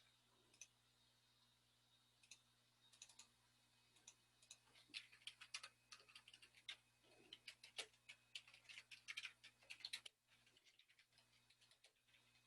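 Faint clicking and tapping over quiet room tone: a few scattered clicks, then a quick irregular run of them from about five to ten seconds in.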